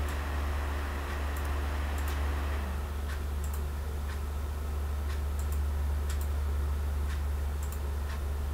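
Computer mouse clicking: a dozen or so short, sharp clicks at irregular intervals. A steady low electrical hum runs beneath them, and a soft hiss fades out a little under three seconds in.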